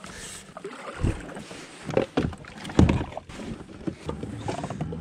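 Hollow knocks and thumps on a plastic fishing kayak's hull as gear is handled on deck, with three louder ones about a second apart. In the second half a low, steady hum sets in.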